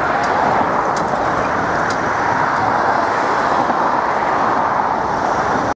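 Steady noise of busy road traffic passing on a main road, a continuous even rush of cars and lorries.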